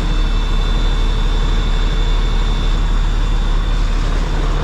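Truck engine running steadily, with a strong low drone.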